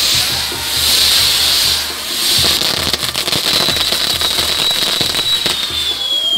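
Fireworks tower (castillo) burning: spinning set-pieces hissing in swells, with rapid crackling from about two and a half seconds in. A high whistle starts past halfway and slowly falls in pitch near the end.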